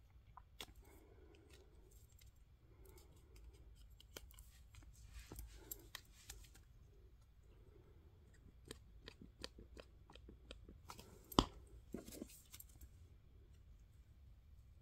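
Faint rustling and small clicks of paper and card being handled and pressed together by hand, with one sharper click a little past halfway through.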